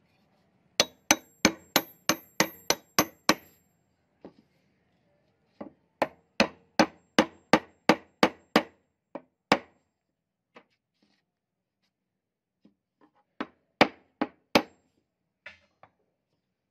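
Polished steel hammer head knocked down repeatedly on a hard surface to drive its wooden handle home in the eye. Sharp metallic knocks with a short ring, at about three a second, in three runs: about eight, then about ten, then three or four near the end.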